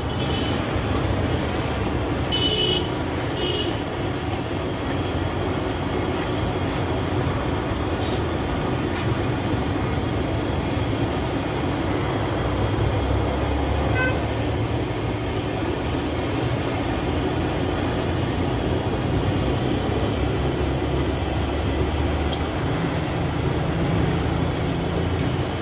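Steady low rumble of a running engine, with two short high-pitched sounds about two and a half and three and a half seconds in.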